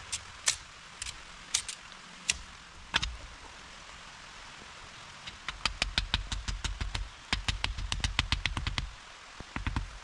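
Sharp tool knocks on wood, a few scattered at first, then fast runs of about six a second for roughly three and a half seconds, each with a dull thud beneath. A steady hiss of rain runs underneath.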